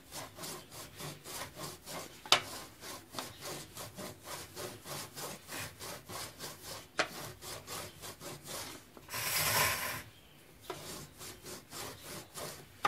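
Metal rolling pin rolling pizza dough back and forth on a floured board, in quick, even rasping strokes of about three a second. There is a longer, louder rasp about nine seconds in, and a few sharp clicks.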